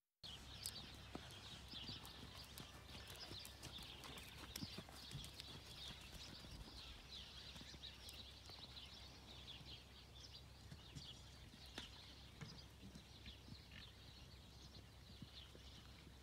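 Faint outdoor ambience: small birds chirping busily, a steady low wind rumble, and soft scattered hoofbeats of a mule moving on sand footing.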